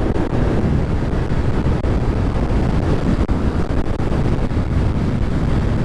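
Steady wind rush on the microphone while riding a Honda motorcycle, with engine and road noise underneath.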